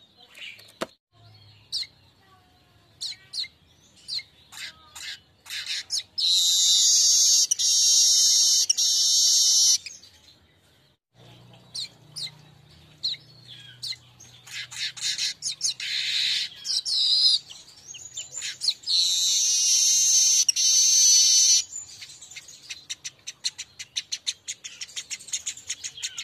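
Manyar weaver bird song: long, dense, high-pitched chattering phrases of a few seconds each, twice, with scattered short chips and clicks between them.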